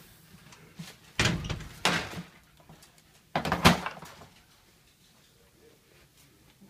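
Three short bursts of clattering and knocking, the last the loudest, as a metal exhaust fan with a wire guard is handled on a wooden table.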